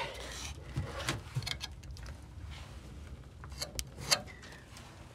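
Light scrapes and a few sharp clicks of a hand rubbing and tapping over the pitted, delaminating aluminium hull plate and loose metal grit.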